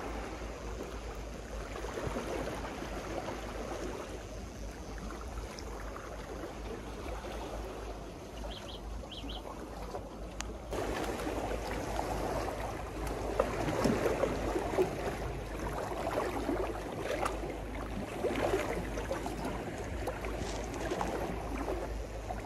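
Sea water washing and slapping against a seawall, an uneven rushing that grows louder about halfway through, over a steady low rumble.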